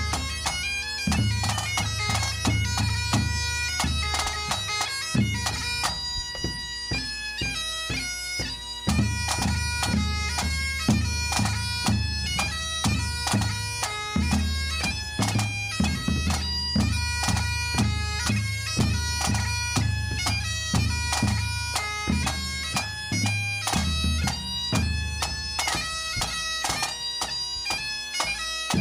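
Pipe band playing a march: bagpipes sound a tune over their steady drones, with a drum beating time in the low end. The drum drops out for a few seconds about five seconds in, then comes back.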